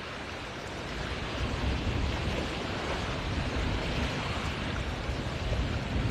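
Steady noise of wind and surf, with low gusty rumbling on the microphone, growing louder about a second in.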